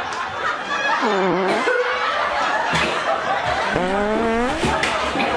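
Snickering and chuckling laughter, with pitched sounds that slide in pitch, one dipping about a second in and another rising near four seconds.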